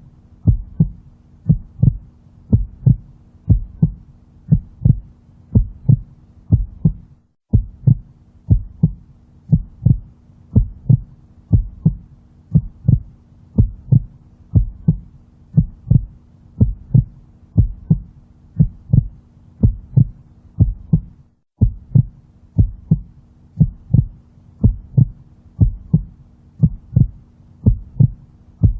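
Heartbeat sound: deep lub-dub double thumps, about one a second, over a faint steady low hum. It drops out briefly twice.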